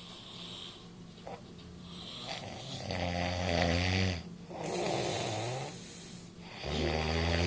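Snoring in a sleep-breathing cycle. A loud snore on the in-breath about three seconds in is followed by a breathy out-breath, and another snore begins near the end.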